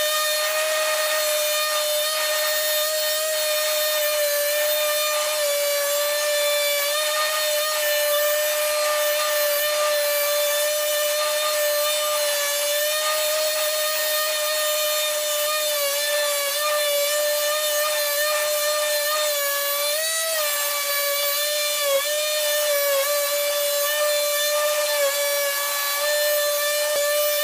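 Parkside PMFS 200 C3 multi-function sander running with its rectangular orbital pad, sanding old paint off a wooden board. It gives a steady whine that wavers slightly in pitch and briefly rises about twenty seconds in.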